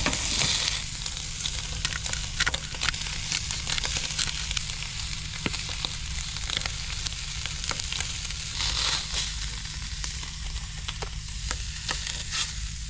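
Pork frying in a pan with spices and sauce, sizzling and crackling steadily with small spitting pops throughout.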